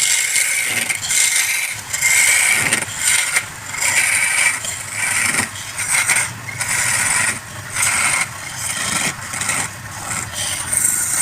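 Wood lathe running while a turning tool cuts the spinning wood, a hissing shaving sound that swells and fades with each pass, about once a second, over the lathe's low motor hum.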